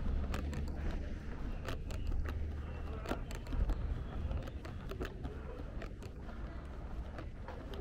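Street ambience: a steady low rumble with irregular light clicks of footsteps on cobblestones.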